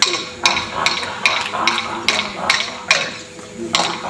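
Wooden clapsticks struck together in a steady beat, about two and a half strikes a second, keeping time for a Gamilaraay ceremonial song.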